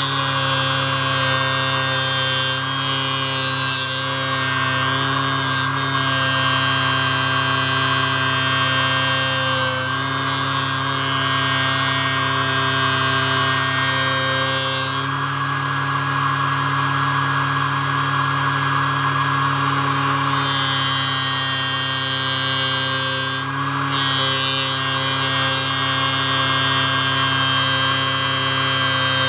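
Small bench polishing machine's electric motor running steadily with a whine, while a knife blade is pressed against the spinning polishing wheel, adding a hissing rub in stretches of a few seconds that comes and goes.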